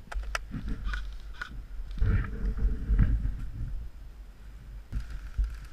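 Rustling and scuffing of a player moving in forest-floor leaves and undergrowth, with low rumble of wind and handling on the camera microphone swelling about two seconds in, and a few sharp clicks in the first second or so.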